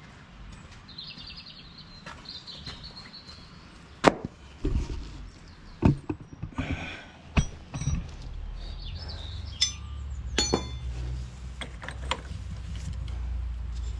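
Sharp metallic clinks and knocks, about half a dozen between four and eight seconds in, from work on a backhoe's hydraulics, then a low steady rumble that starts about eight seconds in. Birds chirp in the background.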